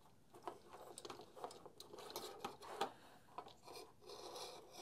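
Faint scattered small clicks and scrapes of plastic wire connectors and switch parts being handled and unplugged inside a cordless multitool's housing.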